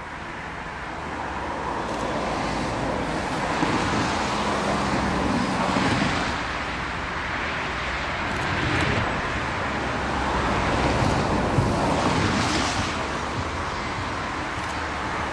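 Steam tank locomotive working slowly toward the listener across a steel truss bridge, its exhaust and running noise growing louder over the first few seconds and then coming in uneven swells.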